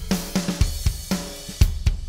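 Drum kit groove with kick, snare, hi-hat and cymbals, played back through an Empirical Labs Arousor compressor on the drum bus. The compressor's sidechain high-pass filter is being turned down and back up meanwhile.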